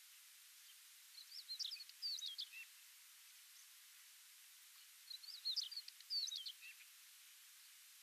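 Tawny pipit singing: two short song phrases about four seconds apart, each a quick run of high chirping notes ending on a lower, falling note.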